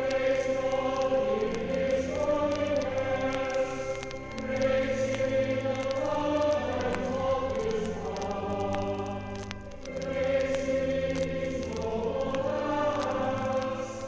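Slow choral music: voices hold long sustained chords over a low held bass, swelling and easing in phrases every few seconds.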